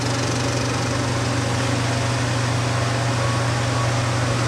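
Cinema film projector and its platter system running, a steady mechanical whir over a low hum.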